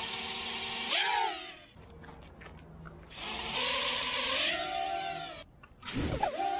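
Happymodel Sailfly-X toothpick quad's EX1102 8500KV brushless motors and propellers whining as it takes off, the pitch rising and falling with the throttle. It comes in two main spells, the second cutting off abruptly about five and a half seconds in, with a fresh rising whine near the end.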